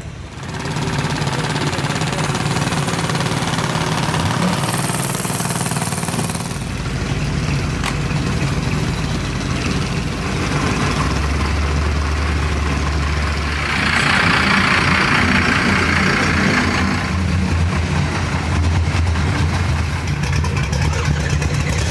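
A vehicle engine idling with a steady low rumble. It gets louder from about fourteen to seventeen seconds in, and there is a short hiss about five seconds in.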